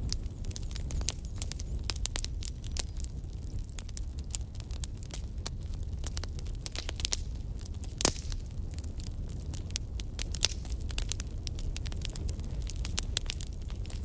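Wood logs burning in a fireplace, crackling with frequent sharp pops over a low steady rumble of the flames; one louder pop about eight seconds in.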